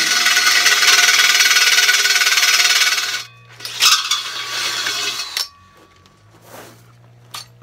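Cordless drill driving a 1¾-inch hole saw into the steel wall of a propane tank: a loud, even grinding cut for about three seconds, then a second shorter burst of cutting with a sharp knock, and the drill stops a little past halfway.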